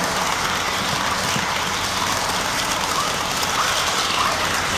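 HO scale model train running past close by, its wheels and motor making a steady rolling hiss on the track.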